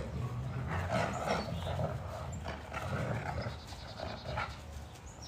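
Dogs play-growling and snarling in irregular rasping bursts while wrestling mouth to mouth in rough play; it eases off near the end.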